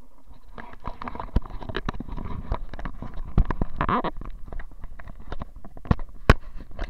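Handling noise of a camera being gripped, lifted and turned over: a dense rush of rubbing and scraping for the first few seconds, with sharp knocks and clicks throughout, the sharpest about six seconds in.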